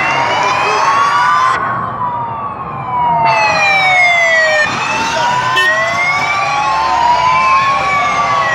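Several sirens on fire engines and police vehicles wailing at once, each pitch slowly rising and falling so that they cross and overlap.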